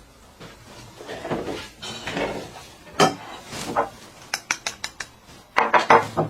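Eating at a table: utensils clinking and scraping against bowls and dishes, with a quick run of sharp clicks past the middle and louder clattering near the end.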